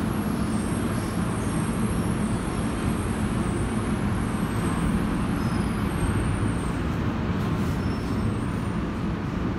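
Steady low rumble and hiss of a vehicle in motion, even throughout.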